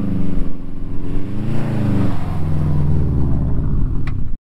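2005 Subaru WRX STI's turbocharged 2.5-litre flat-four engine revving under load, its pitch rising and falling a couple of times, then cutting off suddenly near the end.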